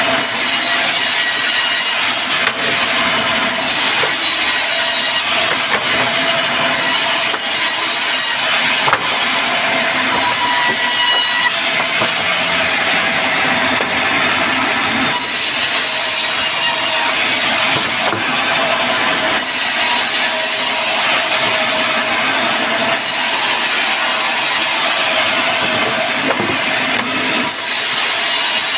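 Wood being cut or worked by a woodworking tool: a continuous loud rasping noise, its high part swelling and easing every second or two.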